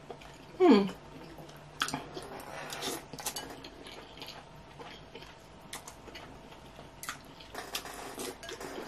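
Eating sounds of slurping instant ramen noodles and sipping broth, with utensils clicking against a glass bowl. About half a second in there is one short, loud vocal sound that falls in pitch.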